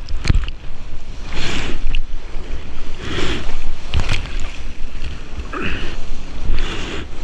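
Seawater splashing and sloshing right at the camera as a bodyboarder paddles, with a swish about every second and a half.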